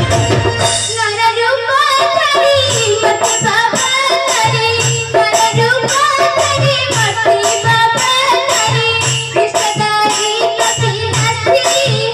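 A girl's voice singing a melodic song into a stage microphone, accompanied by a steady drum beat and jingling metallic percussion keeping time. The voice comes in about a second in.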